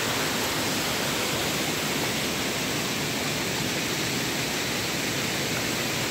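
Steady rush of water from a waterfall and the stream below it, an even, unbroken hiss.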